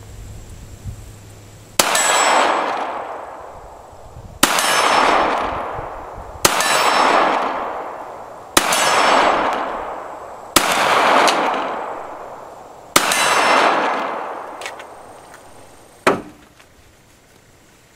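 Six shots from a Glock 43 9mm pistol, spaced about two seconds apart, each followed by a long echo that dies away over a couple of seconds. A single short, sharp knock comes near the end.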